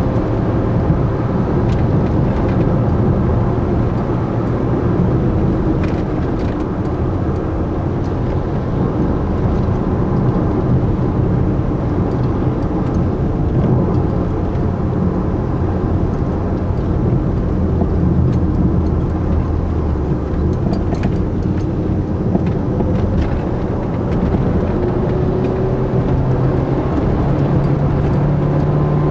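A Ford Focus 1.4 running along the road, heard from inside the cabin: a steady petrol four-cylinder engine note over tyre and road rumble. The engine pitch shifts a little with speed and climbs near the end as the car accelerates.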